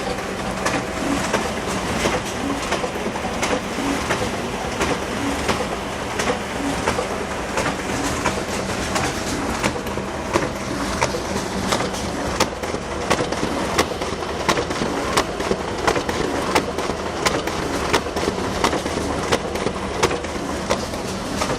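Photocopier running continuously: a steady mechanical whir with regular sharp clicks.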